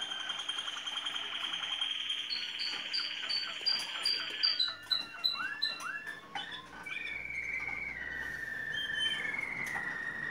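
Malinois (Waterslager) song canary singing: a rapid rolling trill, then a run of high repeated notes about four a second and a few falling whistles, and finally long held notes stepping lower in pitch.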